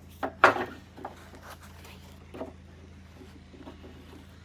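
Mower-deck parts being handled and fitted by hand: a few short knocks and clicks, the loudest about half a second in, then a few fainter taps, over a steady low hum.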